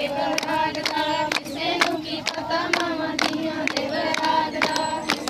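A group of women singing a Punjabi boli together for giddha, with hand claps keeping a steady beat.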